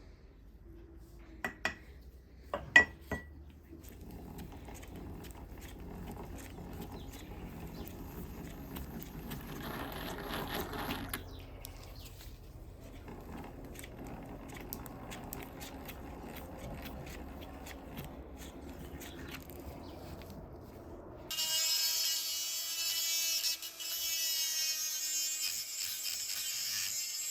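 Workshop tool work: a few sharp knocks, then a steady scraping, rubbing noise that swells briefly in the middle. About three-quarters of the way through it cuts over abruptly to background music.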